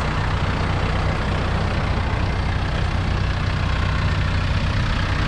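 Branson 4720H tractor's four-cylinder diesel engine running steadily.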